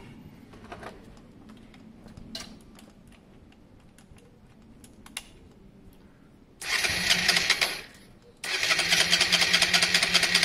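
A few faint clicks, then the electric starter of a Honda Varadero 125 V-twin cranks the engine in two goes: a short burst of about a second, then after a brief pause a longer go of about three seconds that stops suddenly. This is the first start attempt after a carburettor rebuild, with the bike having sat for two weeks.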